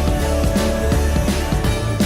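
Pop music with a steady beat and a held bass line.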